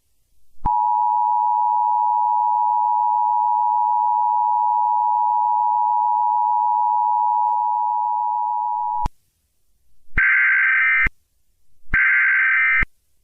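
Emergency Alert System attention signal: the steady two-tone alarm held for about eight seconds and cut off sharply. A second later come two short bursts of screeching EAS digital data tones, each under a second.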